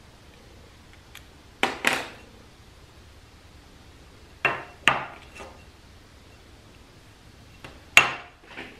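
Sharp metallic clinks as a screwdriver and a transmission clutch apply piston are handled and set down on a metal-topped workbench. They come in three clusters of two or three knocks: about a second and a half in, about four and a half seconds in, and about eight seconds in.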